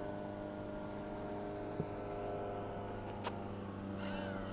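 Electric motor and propeller of a high-wing RC plane running steadily at low throttle on a landing approach, a whine whose pitch drifts slightly lower. A faint click sounds just after three seconds in, and a higher, wavering tone joins near the end.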